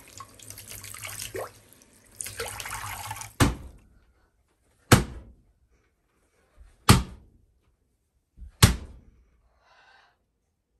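Water splashing and dripping from a wet skein of handspun dog-hair yarn, then four sharp whacks about one and a half to two seconds apart as the skein is thwacked against a wooden wall to set the twist.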